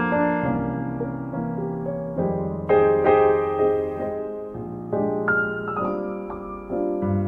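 Background piano music: chords struck one after another, each left to ring and fade before the next.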